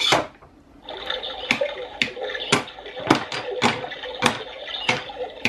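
Sound-book sound chip playing a recording of a fox lapping water from a rippling river: a steady trickle of running water with wet laps about twice a second. It opens with a short tap.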